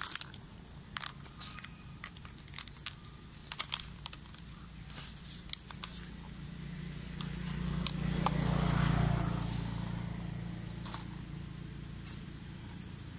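Scattered light crackles and clicks, then a passing vehicle's low engine hum that swells over a few seconds and fades away again in the middle of the stretch.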